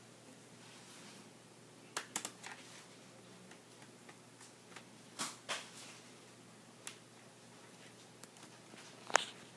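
Scattered small clicks and taps of a screwdriver and fingers on a laptop's plastic display casing while its screen screws are being found and undone. A few clicks come close together about two seconds in, more follow a few seconds apart, and the sharpest comes near the end.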